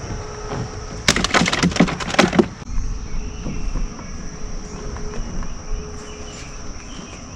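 Insects droning steadily on one high note, broken about a second in by a quick rattling run of sharp clicks that lasts about a second and a half.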